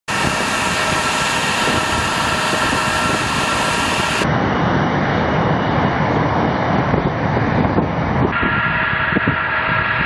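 Tu-160 bomber's four NK-32 turbofan engines running as it taxis: a steady jet roar with a high-pitched whine. The sound changes abruptly twice, about four and eight seconds in, at cuts between shots.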